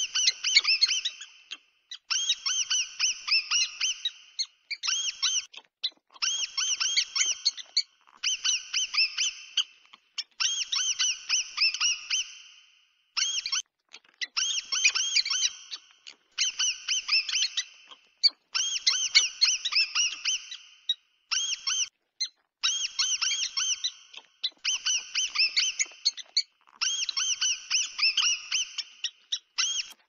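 Mouse squeak sound effect: rapid, high-pitched squeaks in bursts of one to two seconds, repeating with short pauses between.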